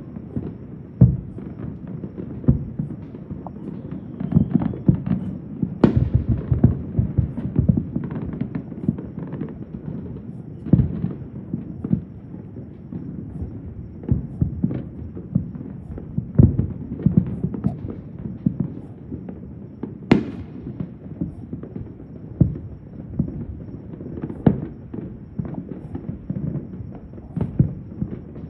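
Many distant fireworks and firecrackers going off at irregular intervals, a near-continuous string of dull low booms and pops, with a couple of sharper cracks about six and twenty seconds in.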